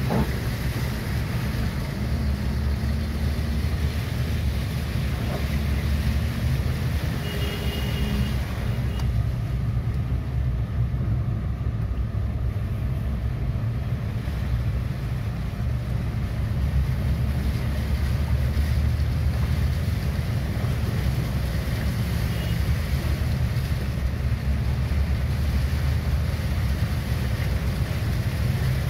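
Steady low rumble of a car driving through standing rainwater on a flooded road, heard from inside the cabin: engine and tyre noise with the wash of water under the wheels.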